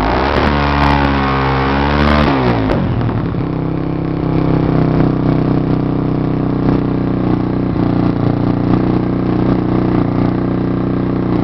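Honda Twister single-cylinder motorcycle engine running through an aftermarket Roncar exhaust: held revs for the first couple of seconds, then dropping back to a steady idle about three seconds in.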